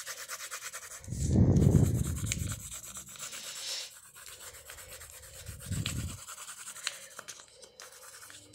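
Coloured pencil scratching and rubbing on paper in quick back-and-forth strokes as an area is shaded in. Two low, dull bumps from the paper and hands on the table come about a second and a half in and again near six seconds.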